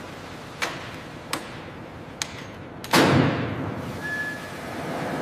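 Workshop tool and machinery sounds over a steady hum: three sharp clicks, then a heavy thud about three seconds in that dies away over about a second, and a brief high tone just after.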